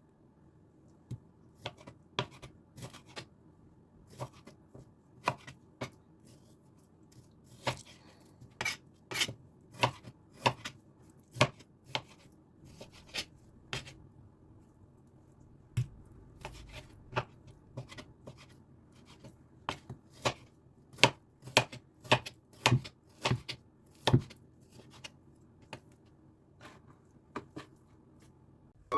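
Knife chopping food on a cutting board in sharp, uneven strokes, about one or two a second, with a few quicker runs.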